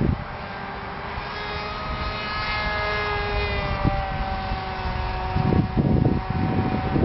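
Wing Dragon RC airplane's brushed electric motor and pusher propeller whining in flight, the pitch rising and then easing back down. Wind gusts buffet the microphone near the start and again near the end.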